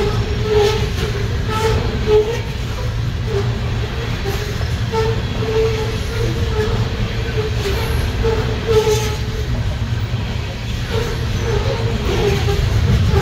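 Freight train of coal hopper cars rolling past: a steady low rumble of steel wheels on rail, with scattered clicks as wheels cross rail joints and a wavering tone that comes and goes.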